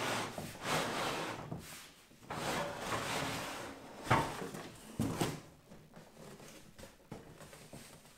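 Cardboard box scraping and rustling as a Summit Viper SD aluminium climbing tree stand is slid out of it, with two sharp knocks of the frame about four and five seconds in, then quieter handling of the box.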